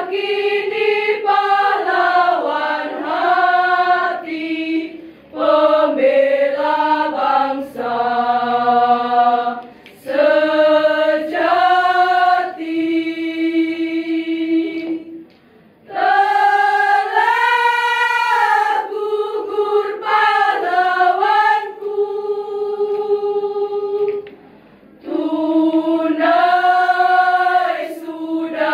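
Women's choir singing a cappella, in long sung phrases separated by a few brief breath pauses.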